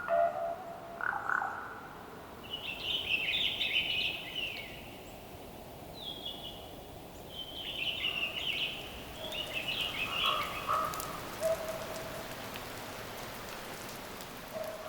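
Ravens calling in a quiet forest: low croaks near the start and again in the second half, with clusters of higher, harsher calls between. Faint scattered ticks can be heard in the latter half.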